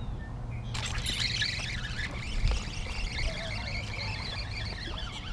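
Wind buffeting the microphone in a low rumble, and from about a second in, a spinning fishing reel whirring steadily as a hooked fish is reeled in.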